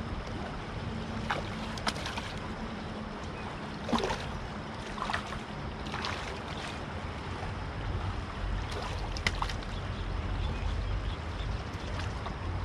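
Steady sound of river water and wind at the bank, with a few short sharp clicks scattered through, the loudest about four seconds in and again near nine seconds.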